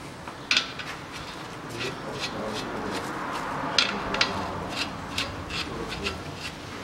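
Gloved hand working on a car's steering knuckle behind the brake dust shield: rubbing and handling noise broken by a scatter of light, sharp clicks and ticks from small metal parts.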